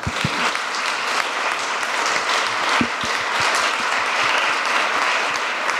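Audience applauding steadily in a large hall, a dense patter of many hands clapping.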